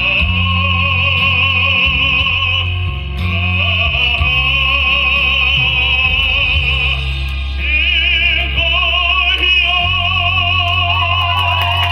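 Music: a high, sustained melody with a strong, wide vibrato over a steady bass accompaniment, moving to a new held note about three-quarters of the way through.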